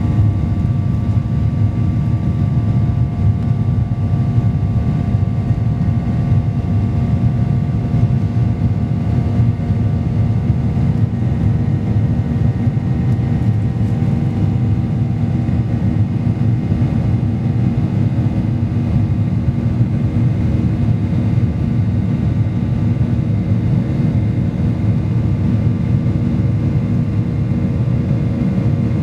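Boeing 737-800 cabin noise heard from a window seat: the CFM56 jet engines and airflow giving a steady, loud rumble with a few even whining tones above it, unchanging throughout.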